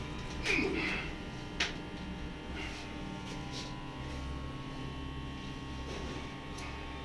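Steady electrical hum, with a few soft clicks, most of them in the first couple of seconds.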